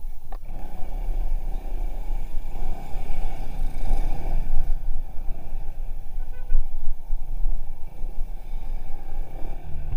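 Motor scooter being ridden along a road: a steady engine and road rumble with wind buffeting the microphone.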